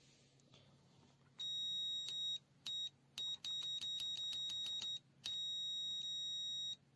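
Aneng M118A multimeter's continuity buzzer beeping as the test probes make contact, a high steady tone in on-off stretches: one about a second long, two short blips, then longer runs of about a second and a half. The beeper lags, holding on for a while after the probes are parted.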